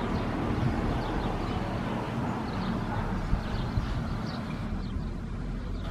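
Small narrow-gauge steam locomotive running slowly toward the listener, a low steady rumble with no sharp beats.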